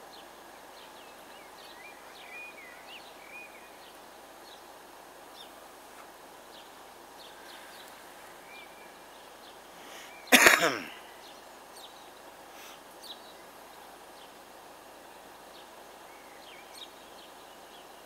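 Steady outdoor background noise with faint, scattered bird chirps, broken about ten seconds in by one loud, short human cough.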